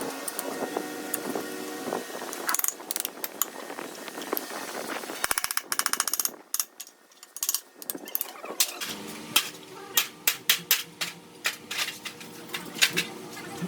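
Sharp clicks and knocks of hand-tool work on metal, with a fast, even run of ratchet-like clicking about halfway through and a dense string of louder taps near the end.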